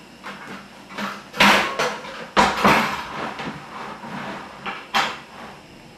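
Hollow knocks and rustling from a plastic bucket and plastic tubing being handled and set down on a table. The loudest knocks come in two bunches in the first half, with another sharp knock near the end.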